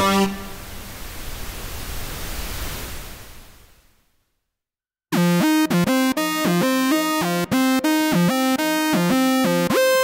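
Cherry Audio Mercury-6 software synthesizer, an emulation of the Roland Jupiter-6, previewing lead presets. One patch ends in a noisy wash that fades out over about four seconds. After a second of silence, a new lead patch starts about five seconds in, playing a quick phrase of bright, sharp-edged notes over a held tone.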